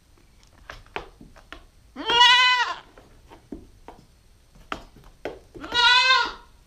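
Nubian goat kid bleating loudly twice, a few seconds apart, each call under a second long and rising then falling in pitch. A few light knocks come between the calls.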